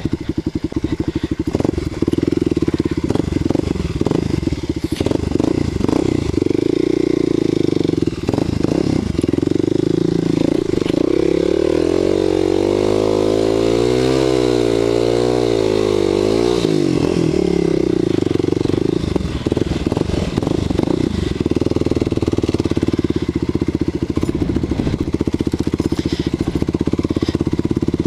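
Kawasaki KLX250 dirt bike's single-cylinder engine running steadily at low trail speed, heard on board the bike. For a few seconds in the middle its note wavers down and back up.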